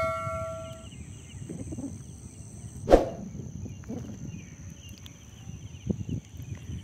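Ringing tail of a notification bell chime fading out in the first second, over outdoor ambience of a steady high-pitched whine and a low wind rumble. A single sharp click about three seconds in.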